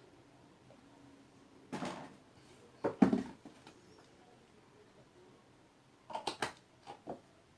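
Handling noises from slime-making containers and utensils: a brief rustle about two seconds in, a sharp knock about a second later, and a quick run of small clicks and taps near the end.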